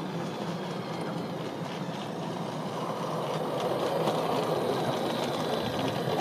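Garden-railway model train running along the track toward the listener, a steady mechanical running sound that grows gradually louder as it approaches.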